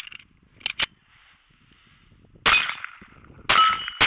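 Glock 44 .22 LR pistol firing three shots about a second apart in the second half, each with a short ring after it. A few light clicks come in the first second.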